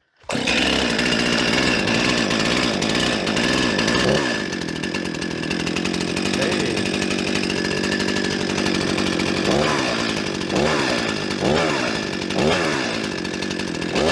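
Two-stroke chainsaw starting up about a third of a second in and running. It settles to a lower idle about four seconds in, then is revved up and back down several times. It runs well again after its fouled spark plug was cleaned with sandpaper.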